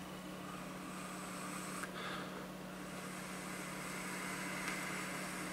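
A long draw on a box-mod e-cigarette: a steady airy hiss of air pulled through the firing atomizer, with a brief click about two seconds in, over a constant low hum.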